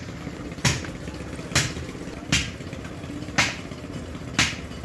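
Five sharp hammer blows, about one a second, over a low steady rumble.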